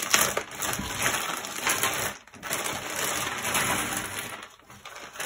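Clear plastic bag crinkling as it is torn open, and loose cardboard jigsaw puzzle pieces clattering out of it onto a tabletop. The sound stops briefly about two seconds in and again near the end.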